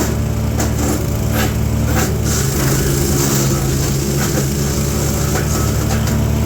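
Gas-engine wood chipper (Chipease D1500E, 420cc four-stroke) running at speed, with sharp cracks of wood being chipped. Its engine note sags briefly about two to four seconds in, under a rush of chipping noise.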